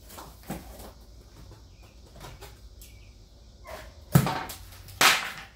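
Shipping packaging being stripped by hand from a tool chest: light rustling and small knocks, then two loud sharp snaps or rips, about four seconds in and again a second later.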